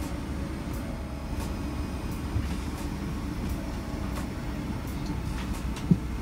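Steady low rumble of airliner cabin noise inside a Boeing 777-200LR, with faint light ticks and a short soft thump near the end.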